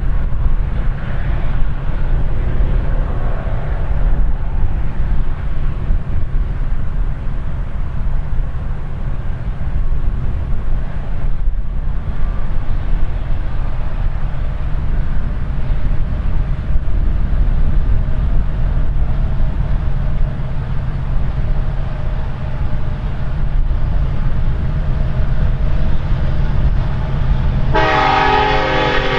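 Strong wind buffeting the microphone over the low rumble of an approaching diesel freight train, a Canadian National EMC SD70M-2 in the lead. About a second before the end, the locomotive's multi-note air horn starts sounding.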